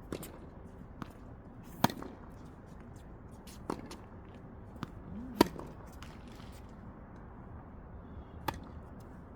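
Tennis balls struck by rackets and bouncing on the court in a practice rally: sharp single pops every one to two seconds, the loudest about two, five and a half and eight and a half seconds in.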